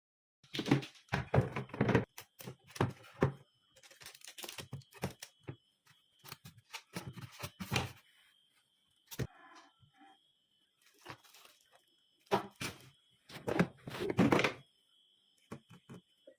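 Irregular knocks, thuds and rustling in bursts, as of plastic parts of a twin-tub washing machine being handled, with a faint steady high tone underneath.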